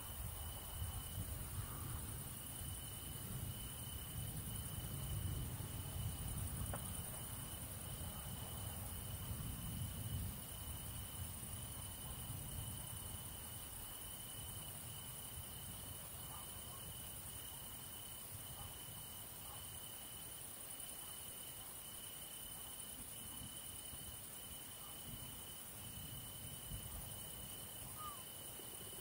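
Night insects, crickets, chirring steadily in a thin high continuous trill over a high hiss. A low rumble sits underneath in the first ten seconds or so and then fades away.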